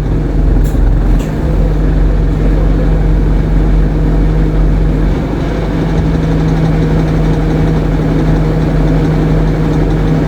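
ADL Enviro 200 MMC bus engine running steadily, a continuous low hum with a constant drone, its low rumble easing slightly about halfway through. Two faint high ticks sound about a second in.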